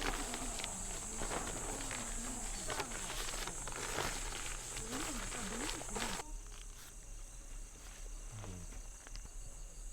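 Insects chirring in a steady high band. Over the first six seconds, a dense run of clicks and crackles with some low sliding sounds stops abruptly about six seconds in, leaving the insects alone.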